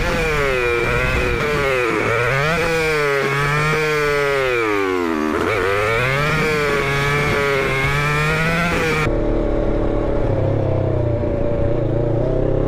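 Motorcycle engine running while riding, its pitch rising and falling with throttle and gear changes. About nine seconds in the sound cuts abruptly to a steadier, lower engine note with less hiss.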